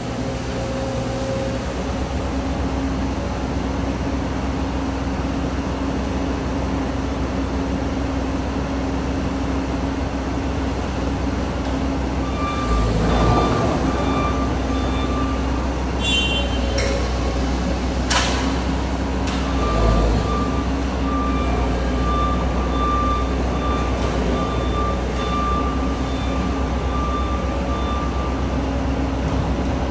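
Komatsu PC200 hydraulic excavator's diesel engine running steadily under load as its bucket works against a steel hopper tower. Several metal bangs and clanks come between about 13 and 20 seconds in, and a thin high whine comes and goes through the second half.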